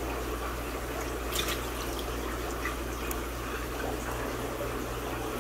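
Steady trickle and splash of running water in fish-room tanks over a constant low hum, with a few brief clicks.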